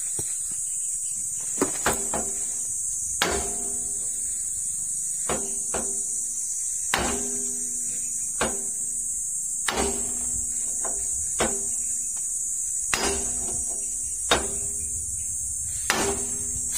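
Hammer blows on a long steel bar driven against a concrete mixer's drum shaft, about a dozen strikes at irregular intervals of a second or so. Each strike rings briefly with a metallic tone. The work is knocking loose the shaft whose bearing has been crushed.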